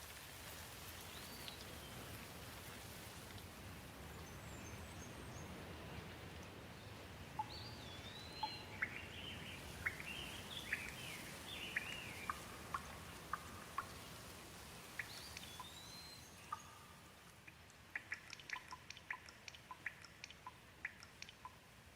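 Birds chirping and whistling over a steady soft hiss of rain. There are scattered rising and falling whistled calls, then a quick run of short sharp chirps near the end.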